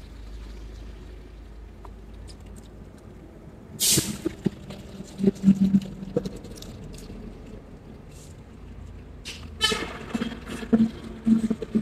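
Poodles chewing pieces of chicken, with scattered small crunching clicks. Two louder pitched sounds cut in, about four seconds in and again near the end.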